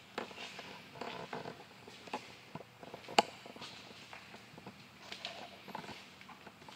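Footsteps and light scuffs on a concrete floor at an irregular pace, with one sharp click about three seconds in, over a faint steady low hum.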